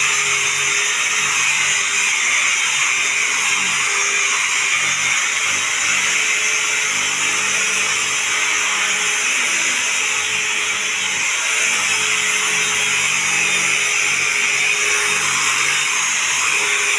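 Handheld electric rotary brush scrubbing fabric sofa upholstery. Its motor runs steadily while the spinning pad rubs over the cloth.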